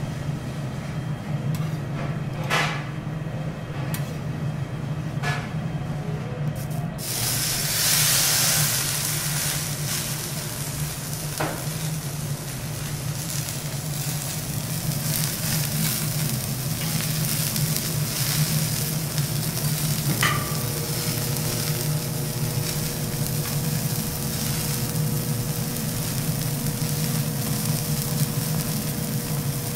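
A few light clicks of a metal spatula on a steel teppanyaki griddle. About a quarter of the way in, a loud sizzle starts suddenly and carries on steadily as a thick wagyu steak fries on the hot plate. A steady low hum runs underneath.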